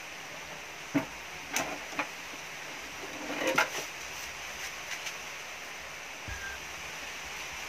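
A few separate knocks, then a short clatter about three and a half seconds in, as a 12-inch subwoofer driver's metal frame is handled and set down on top of a wooden speaker cabinet.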